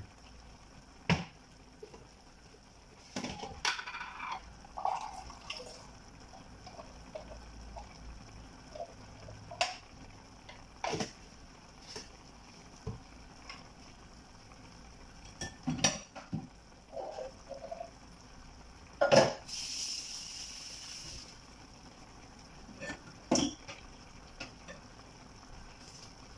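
Chicken stew simmering in a frying pan on the stove, with scattered sharp pops and knocks about every few seconds and a short hiss about twenty seconds in.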